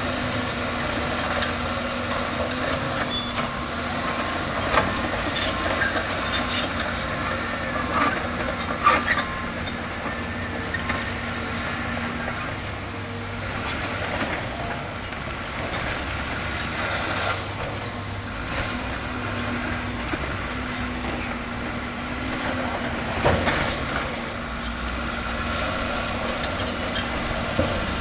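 Diesel engines of an excavator and a crawler bulldozer running steadily as they work gravel, the engine note rising and falling with the load. A few sharp knocks of rock and steel stand out over the hum.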